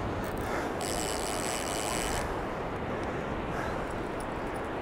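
Strong wind buffeting the microphone: a steady, rushing rumble. About a second in, a thin, high whir joins it for about a second and a half.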